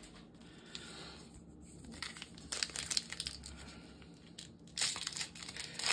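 Crinkling of trading-card packaging being handled, coming in irregular bursts. It is quiet for the first couple of seconds and grows louder near the end.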